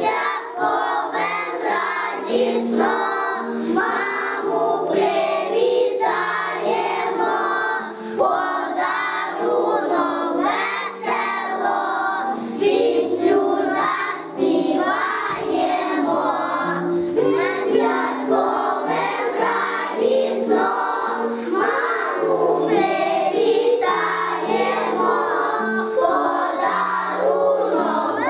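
A group of young children singing a song together in unison, over a steady instrumental accompaniment.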